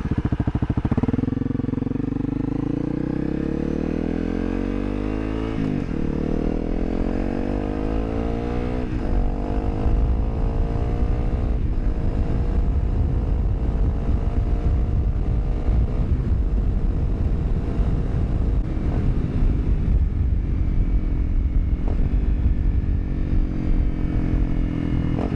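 Honda CRF250L's single-cylinder four-stroke engine pulling away and accelerating, its pitch climbing in each gear and dropping back at each upshift, several times over. Wind rushes over the microphone, growing stronger as speed builds.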